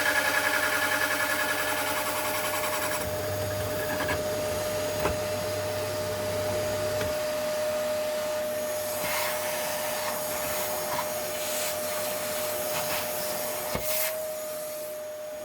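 A power tool's motor running with a pulsing whir, which stops about three seconds in. A steady high hum carries on after it, and there are two sharp knocks, near five seconds and near the end.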